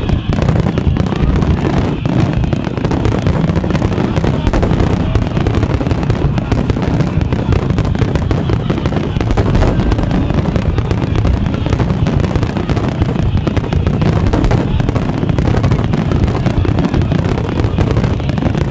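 Large fireworks display in a dense barrage: many shells and set-piece charges going off so close together that the bangs and crackle merge into one continuous, loud rumble.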